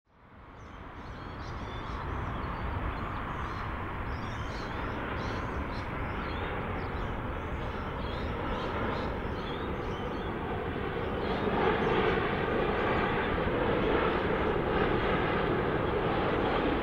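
Boeing 787-9 airliner's jet engines on final approach, a steady rushing engine noise that fades in at the start and grows louder about two-thirds of the way through as the aircraft comes close.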